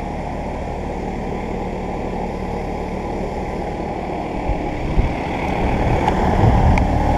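Central air conditioner condensing units running: a steady hum from the compressor under the fan's airflow noise. The sound grows louder about six seconds in, with a couple of brief low thumps shortly before.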